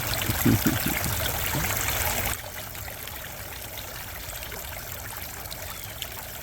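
Water from a three-tiered cement fountain trickling and splashing steadily down its tiers. It drops suddenly in loudness about two seconds in.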